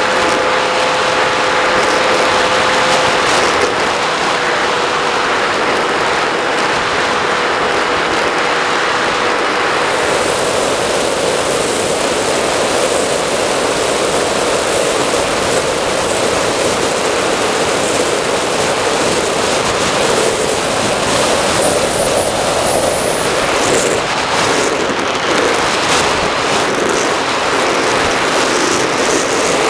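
Bixler RC plane's electric motor and pusher propeller running, picked up by the onboard camera along with wind rush. A steady whine holds for about ten seconds, then gives way to a rougher rushing noise.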